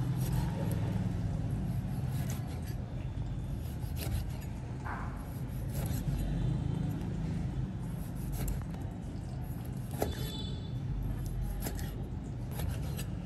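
Chef's knife slicing raw sea snail meat, the blade knocking sharply on a plastic cutting board every second or two, over a steady low hum.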